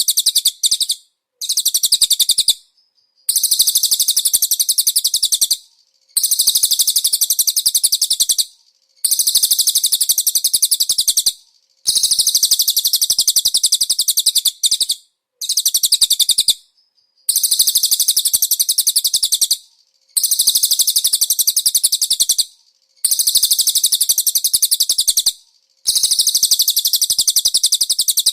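Recorded songbird song from a konin masteran (a track played to train caged birds): loud, rapid, high-pitched trilling phrases of two to three seconds each, separated by short pauses.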